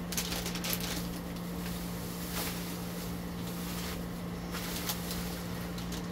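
Scissors and hands working at a plastic snack package, giving scattered short clicks and crinkles. A steady low hum runs underneath.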